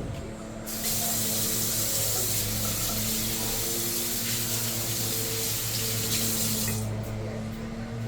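Kitchen tap running into a sink for about six seconds, starting about a second in and shut off near the end, over a steady low hum.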